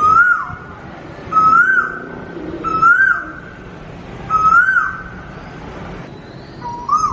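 A whistle-like call repeated five times, about every second and a half. Each call is a held note that swoops up and back down at its end.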